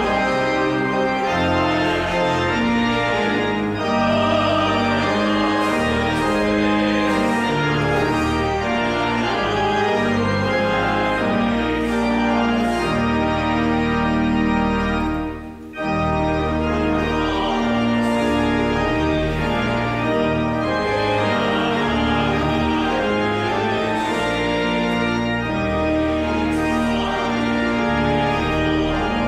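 Organ playing slow, held chords over deep bass notes, with a brief pause about halfway through.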